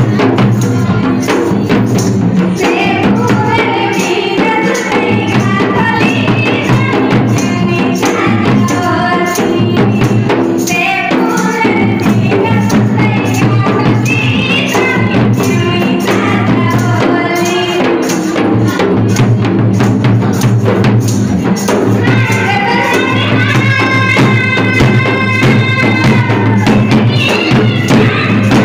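Adivasi tea-tribe folk dance music: fast, steady beats on barrel-shaped hand drums with a melody over them that comes up stronger in the last several seconds.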